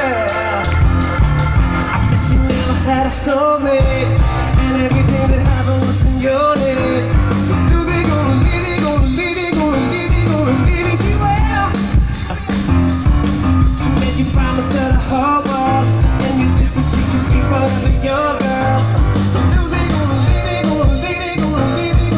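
Live pop-rock band playing a song, with a steady drum beat, bass and guitar under a singing voice.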